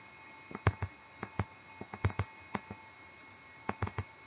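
Stylus clicking and tapping against a tablet's hard surface while writing by hand: irregular sharp clicks, often in quick pairs or little clusters, with a pause of about a second in the middle. Behind them runs a faint steady hum made of several held tones.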